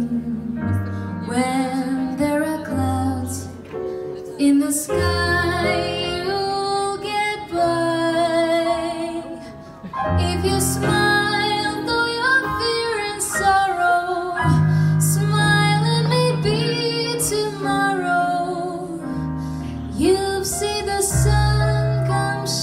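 A woman singing a jazz song, backed by piano, upright bass and drums.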